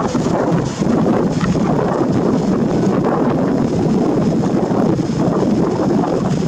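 Steady rushing wind noise on the microphone over the running noise of an approaching Taiwan Railways EMU700-series electric commuter train.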